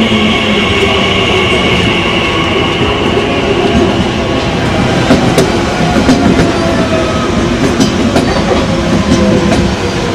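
Class 345 electric train pulling out along the platform: a steady running hum with tones that slowly fall in pitch, and sharp wheel clicks over the rail joints from about five seconds in as it draws away.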